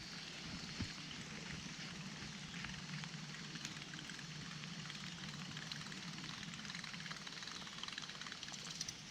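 Faint, steady outdoor background noise: a low hum with a broad hiss over it and a few faint ticks.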